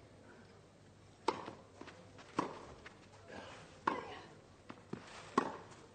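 Tennis rally: four crisp racquet strikes on the ball, about a second and a half apart, with lighter ticks of ball bounces and footsteps between them.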